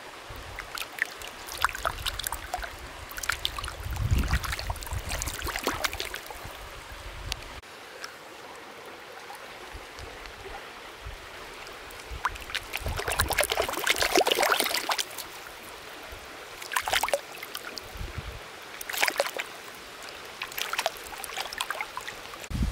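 Water splashing and sloshing in shallow water in irregular bursts as a large fish moves at the surface among floating plants, with a louder stretch a little past the middle.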